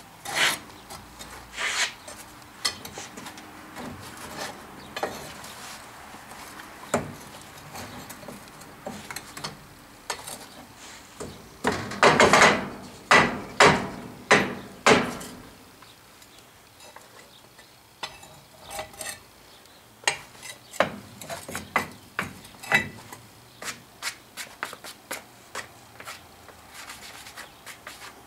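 Steel tongs scraping and clinking against a freshly cast aluminum piece and the metal flask as the casting is broken out of its sand mold, with loose molding sand crumbling and scraping. Irregular clicks and scrapes throughout, with a louder run of scraping about twelve to fifteen seconds in.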